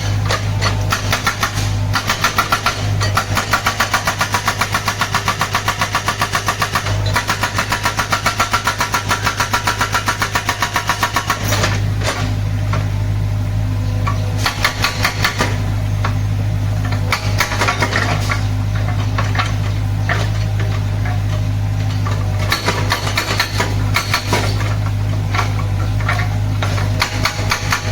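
Excavator's diesel engine running steadily while its hydraulic breaker hammers in a fast, even train of blows. The hammering runs for about the first eleven seconds, then comes in shorter bursts with the engine alone in between.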